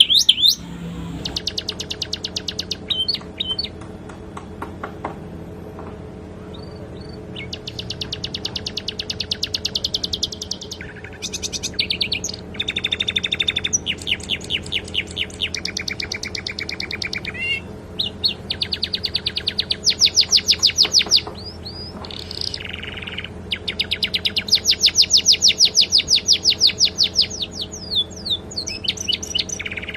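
Domestic canary singing in fast, high trills and runs of rapidly repeated chirps, phrase after phrase with short pauses between. The song is filled with phrases learned from the sikatan londo. A faint steady hum lies underneath.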